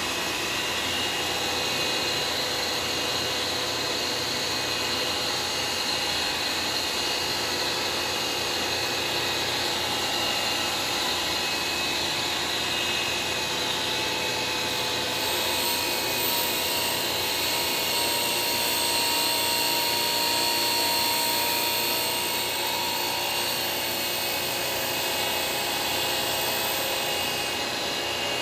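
Surface grinder running with its wheel grinding a metal ring on a rotating magnetic chuck: a steady whine over an even hiss, with a thin high whistle joining about halfway through.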